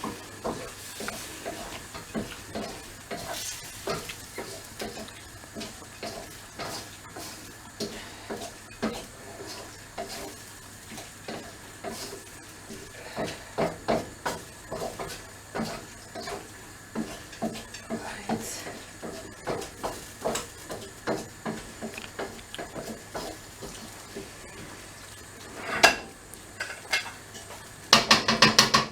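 A utensil stirring and scraping a chicken and vegetable stir-fry in a pan, with irregular clinks against the pan over a faint steady sizzle. Near the end comes a quick run of louder knocks.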